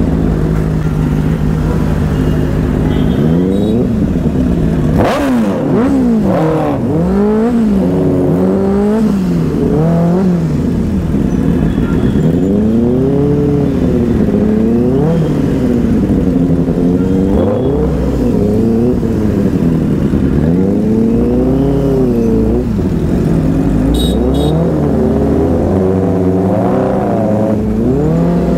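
Inline-four sport motorcycle engine revved again and again over a steady idle, its pitch rising and falling every second or two, with one sharp, high rev about five seconds in.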